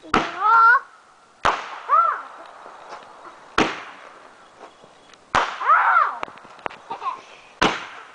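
Consumer fireworks going off: five sharp bangs about two seconds apart, with short pitched tones that rise and fall after several of them.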